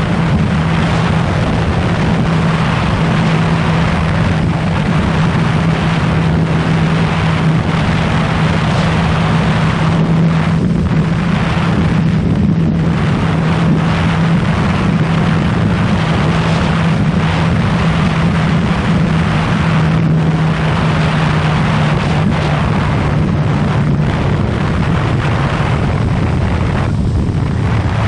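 2015 Yamaha FZ6R's inline-four engine running at a steady cruise, its pitch holding nearly constant, under heavy wind noise on the microphone.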